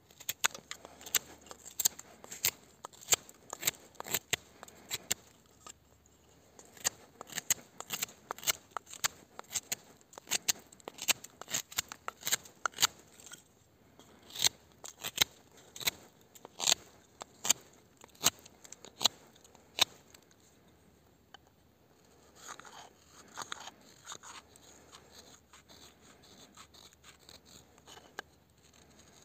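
A knife blade whittling a stick of dry wood. For most of the clip each cut is short and sharp, about two a second. Near the end it gives way to softer, longer scraping strokes along the stick.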